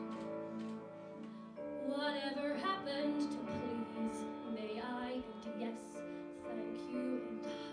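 A woman singing a slow show tune over steady, sustained instrumental accompaniment.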